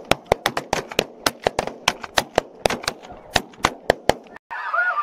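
Several shotguns firing in a rapid, overlapping volley of shots, about five a second, stopping about four seconds in. Near the end, snow geese honking.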